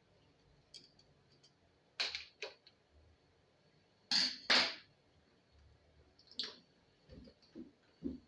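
Tools and small metal parts clinking and scraping as the case of an old gramophone is worked open: a few sharp clicks, the loudest pair about four seconds in, then soft knocks near the end.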